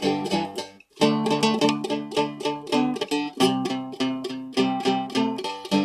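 Seagull Merlin, a four-string fretted stick dulcimer tuned G-D-G-G, strummed through a slow blues in G. The strums are steady and even, with a short break about a second in.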